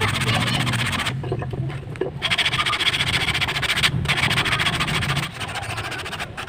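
Sandpaper rubbed by hand over a wooden slingshot fork carved from a tree branch, in quick back-and-forth rasping strokes. It stops for about a second shortly after the start, breaks off briefly again near the middle, and is quieter near the end.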